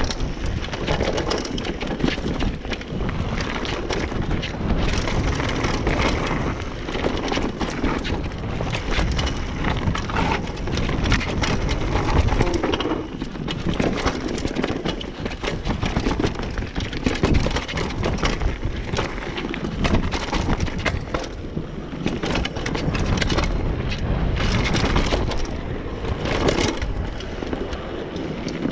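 Mountain bike riding fast down a rough dirt and rock trail: tyres crunching over stones and roots, with a constant clatter of knocks and rattles from the bike over the bumps.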